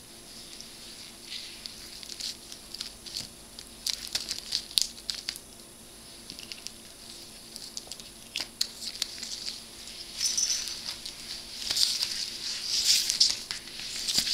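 A cat's fur brushing and sliding over a wooden floor as it is spun around by hand, an irregular rubbing hiss with scattered light clicks, busier and louder in the last few seconds.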